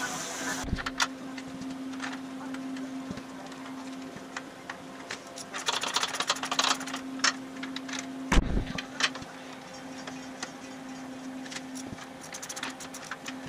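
A gas torch hisses briefly at the start. Then come metal wrenches clinking on nuts and a ratchet clicking rapidly for about a second, as nuts are run down on the front batwing and spring shackle bolts. A single heavy knock comes about eight seconds in, over a steady hum.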